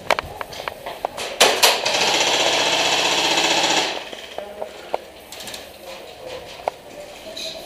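Airsoft rifle firing two quick single shots, then a full-auto burst of about two seconds with a fast, even rate of fire.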